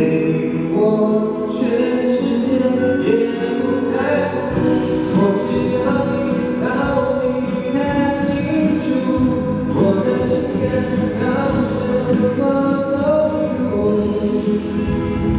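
A man singing a slow pop ballad to his own acoustic guitar, played live through a microphone and amplifier.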